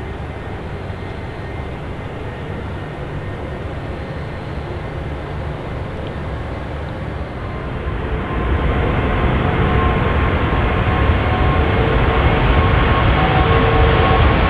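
Airbus A380-861's four Engine Alliance GP7200 turbofans at takeoff power during the takeoff roll: a deep, steady rumble that grows louder about eight seconds in as the aircraft closes on the listener, with a steady tone coming through over the rumble near the end.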